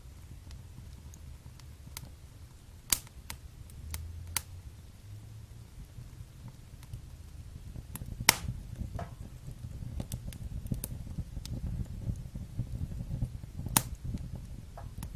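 Wood fire in a fireplace crackling: a low steady rumble of burning with scattered sharp pops, the loudest about eight seconds in and another near the end.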